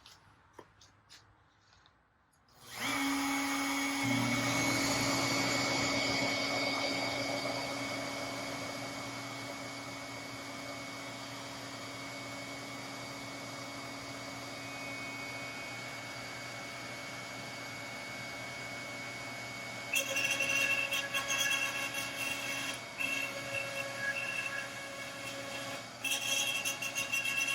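A CNC router's spindle motor starts about two and a half seconds in and runs with a steady whine. From about twenty seconds in, a rough, crackling cutting noise comes and goes over it as the bit cuts into the wood.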